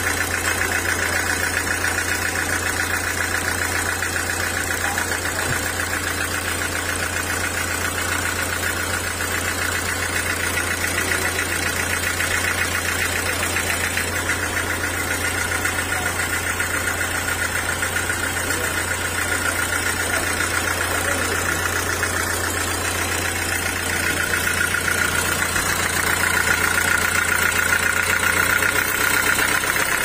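Diesel engine idling steadily, with a light clatter, growing a little louder near the end.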